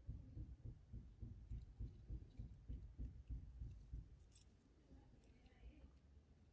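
Faint handling noise of fingers working a fishing line into a knot: soft, irregular low thumps for about the first four seconds, then quieter, with a few small clicks.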